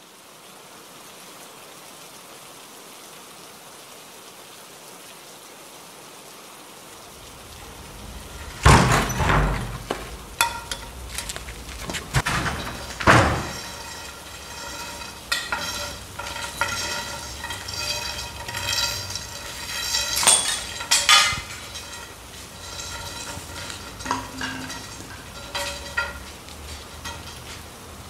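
Film soundtrack sound design: a steady hiss, then a low drone comes in with two heavy hits, followed by a stretch of pitched tones and scattered sharp hits.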